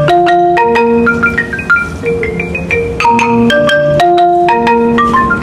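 Intro music: a melody of struck, ringing notes over a low beat, the phrase repeating about every three seconds.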